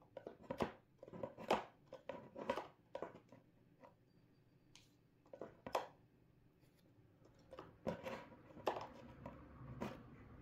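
Someone rummaging through baseball cards and plastic top loaders: irregular rustles, clicks and sharp taps in clusters, with a couple of short pauses.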